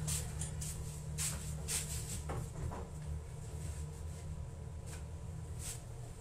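Steady low hum with a few short, light clicks and rustles scattered through it.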